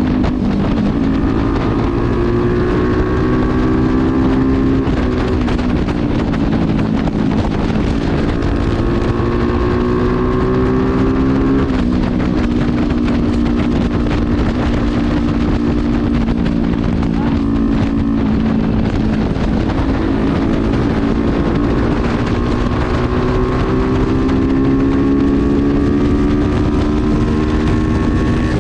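Heavily modified motorcycle, with a handmade exhaust fitted with a dB killer, being ridden and accelerating through the gears. The engine note climbs and then drops sharply at each upshift, about three times, with wind noise on the microphone.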